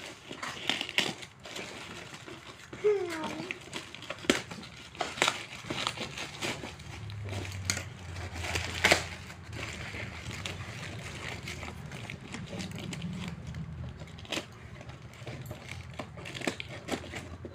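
Packaging being handled and unwrapped: plastic and cardboard crinkling and crackling, with scattered clicks and knocks throughout.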